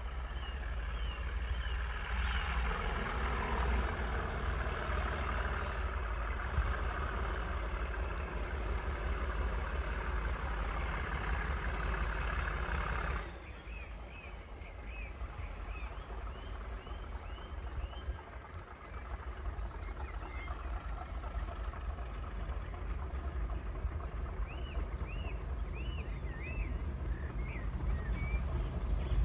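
Diesel train running past on a heritage railway line, a broad, steady rail-and-engine noise that cuts off abruptly about thirteen seconds in. Birds sing throughout, and a low rumble slowly grows again near the end as another train approaches.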